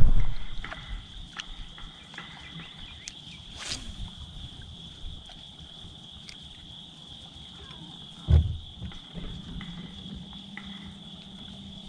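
Steady high-pitched chorus of insects chirring in the background, with a sharp click about four seconds in and a dull low thump about eight seconds in.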